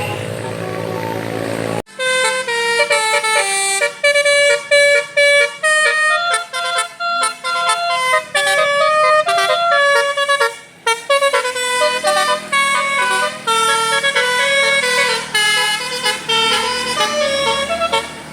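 Telolet horn on an Indonesian bus, a multi-trumpet musical horn, playing a fast tune of short notes that step up and down in pitch. It starts after a different sound cuts off abruptly about two seconds in.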